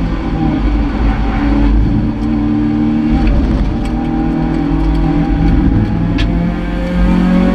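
Toyota MR2 race car's engine heard from inside the cockpit, pulling hard at high revs, its pitch climbing slightly near the end as the car accelerates down the straight.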